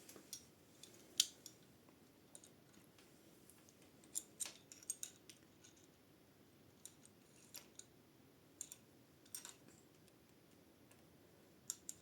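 Pliers clicking against a bicycle gear cable and its small fittings: scattered sharp metal clicks in short clusters, with quiet in between.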